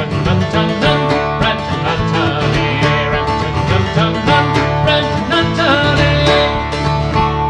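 Acoustic string band playing an instrumental passage of a Celtic folk tune: long-necked, round-bodied plucked string instruments and an acoustic guitar, picked and strummed in a brisk, steady rhythm with no singing.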